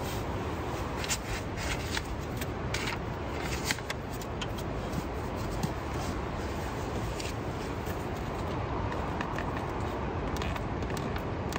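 Steady rain hiss on a tent's fabric, with scattered drip ticks, and a few short crackles of nylon sleeping bag and blankets rustling in the first few seconds as someone shifts inside.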